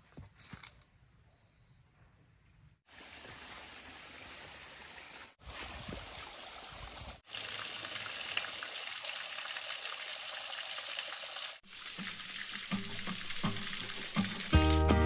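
Thin streams of a small waterfall spattering into a shallow rock pool, a steady rush of falling water. It starts about three seconds in after a few soft footsteps on dry leaves, and its level jumps at a few abrupt cuts.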